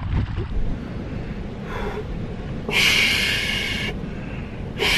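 A man's breaths close to the microphone: two loud rushing breaths, each about a second long, about three seconds in and again near the end, over a low rumble.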